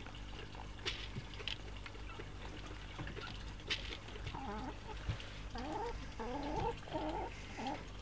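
Hens clucking, a run of short up-and-down calls starting about halfway through, with a few sharp clicks before them.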